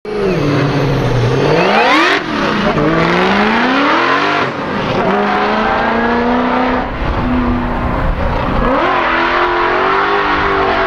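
Supercharged Infiniti G35's V6 engine at full song, revving up and down repeatedly, with quick climbs in pitch and brief drops as the throttle is lifted and reapplied.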